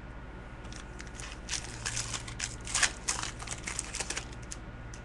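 Crinkling of a trading-card pack wrapper being handled and opened: a run of short, irregular crackles from about a second and a half in until near the end, loudest around the middle.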